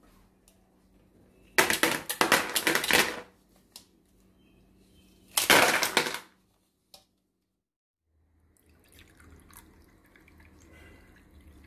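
Plastic ice cube tray being twisted, the frozen cubes cracking loose in two short crackling bursts a few seconds apart. Near the end, faint sounds of juice being poured into a glass.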